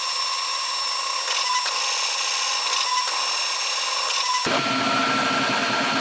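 Flashforge Adventurer 5M 3D printer running a print: its stepper motors whine with steady high tones as the print head moves fast, vibrating the workbench under it. About four and a half seconds in the sound changes abruptly and a lower hum comes in.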